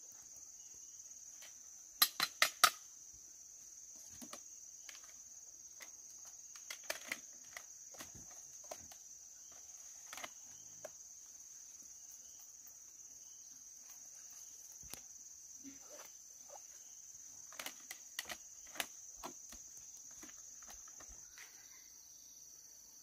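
Steady high-pitched drone of insects, with scattered rustles and clicks of things being handled and packed into a woven basket, and light footsteps. A quick run of four sharp clicks about two seconds in is the loudest sound.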